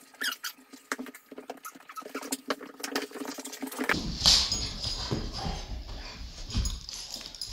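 Dogs moving about close to the microphone: scattered clicks and scuffs. About four seconds in a large dog comes right up to it, bringing a low rumbling rub and a sharp hissy burst.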